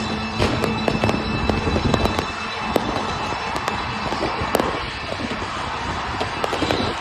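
Fireworks going off in rapid succession: dense crackling with many sharp pops and reports scattered through.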